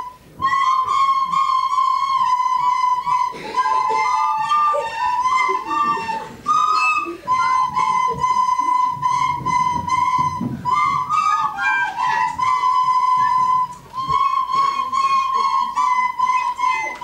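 Descant recorders playing a simple melody, pitched notes held and stepping up and down. Short breaks for breath just after the start, about six and a half seconds in and near fourteen seconds.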